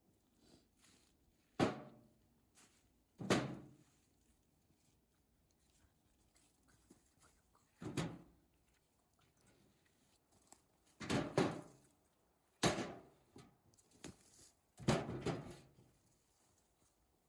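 Split firewood being handled and stacked: about six irregular wooden thunks as pieces are set down on the pile.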